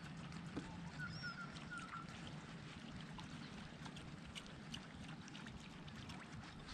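Faint water lapping and trickling against a kayak hull on calm water, with scattered small ticks and a few faint bird chirps about a second in.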